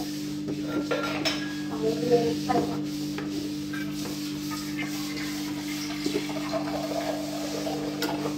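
Tissue paper rubbing and wiping over the non-stick plates of an electric roti maker, with a few light taps, over a steady low hum.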